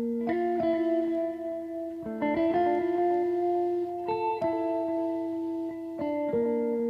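Background music on guitar: slow sustained plucked notes and chords changing every second or two.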